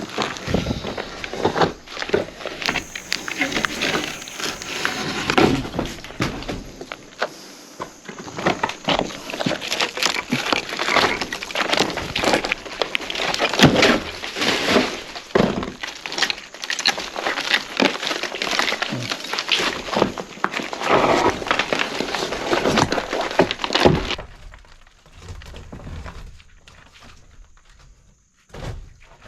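Old timber from a log cabin being broken apart: a long run of knocks, thuds and splintering cracks of wood, dying down near the end.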